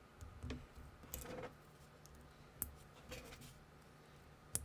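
Small plastic minifigure parts being handled and snapped together: about five light, separate clicks of plastic on plastic, the sharpest near the end as a sword piece is fitted into the figure's hand.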